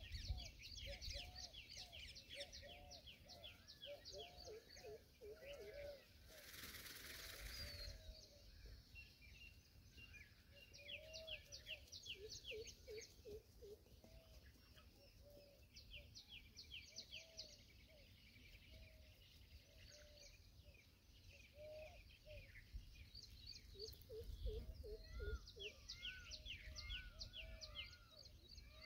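Faint outdoor birdsong: several small birds chirping in quick runs of short, high notes, with lower, arched call notes mixed in. About six seconds in there is a short burst of hiss lasting a couple of seconds.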